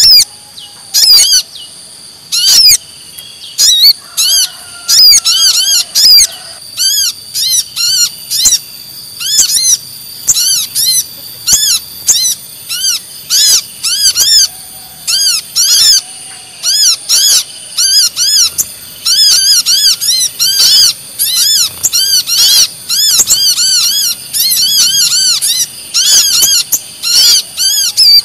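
Bird-lure recording of a brown-throated sunbird (kolibri kelapa) mixed with a little spiderhunter (sogon): loud, sharp, high chirps in rapid bursts, one to several every second, over a steady high whine.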